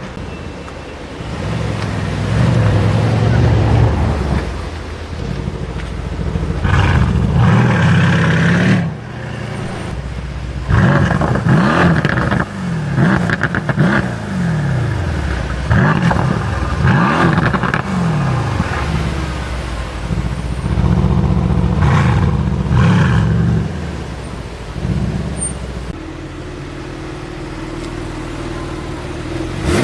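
Supercar engines revving and accelerating hard, the engine note sweeping up and down in pitch again and again in a series of loud bursts, the busiest through the middle stretch.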